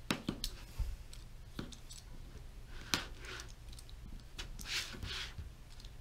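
Utility knife blade cutting the corners off a LokBuild build-surface sheet on a G10 flex plate: a few light clicks, then short scraping strokes about three and five seconds in.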